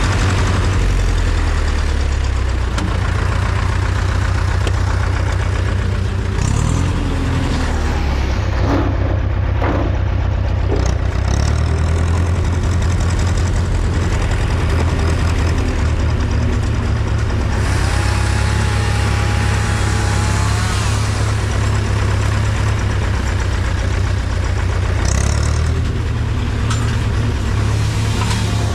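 Zetor 4011 tractor's four-cylinder diesel engine running steadily as the tractor drives along.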